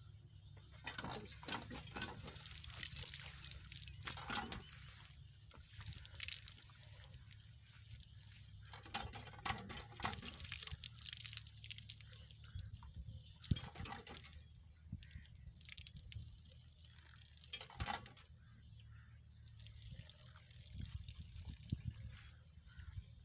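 Faint splashing and dripping of water from a hand pump's spout as its handle is worked, with a few sharp clicks.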